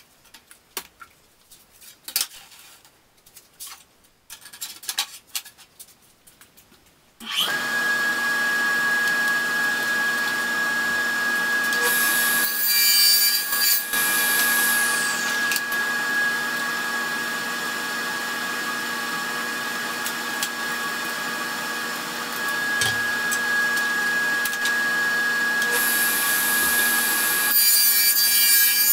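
A few light clicks and knocks, then about seven seconds in an electric power saw starts abruptly and runs steadily with a constant whine, cutting through a polycarbonate plastic sheet. The cutting gets harsher twice, near the middle and near the end.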